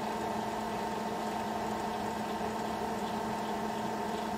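Milling machine running under power while a spiral point tap in its drill chuck cuts a thread into a through hole: a steady machine hum with a higher steady tone above it, unchanging throughout.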